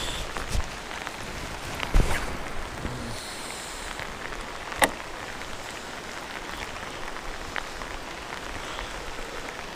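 Heavy rain falling on the lake, a steady hiss, with a few sharp knocks, the loudest about two seconds in and just before five seconds in.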